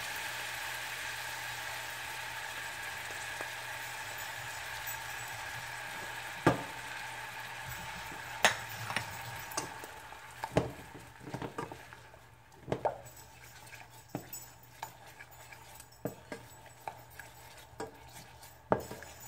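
Butter, garlic, brown sugar and honey sizzling in a small saucepan, the sizzle dying down after about ten seconds. A wooden spatula stirs the sauce, knocking and scraping against the pan with sharp clicks that come more often in the second half.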